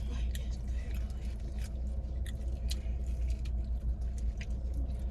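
Close-miked chewing, with scattered short wet mouth clicks, over a steady low hum inside the car.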